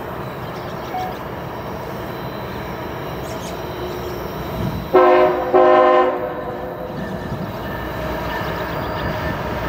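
Horn of an approaching CSX diesel freight locomotive sounding two blasts about five seconds in, a short one followed straight away by a longer one, over the steady rumble of the train drawing nearer and growing slowly louder.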